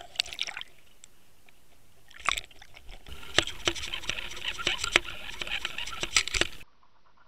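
Water gurgling and trickling past an underwater camera as it is drawn through the lake, with many sharp clicks and knocks. The sound drops away abruptly near the end.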